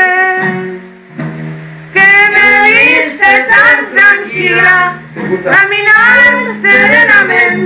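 A female voice singing a slow Spanish-language song to acoustic guitar. A held note fades out in the first second, and after a short pause the singing resumes about two seconds in over the guitar.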